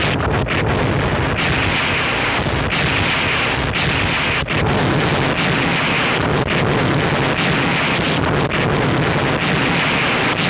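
Harsh noise: a loud, dense, distorted wall of noise with a heavy low rumble. A hissing band in the upper range switches on and off every second or so, with brief dropouts.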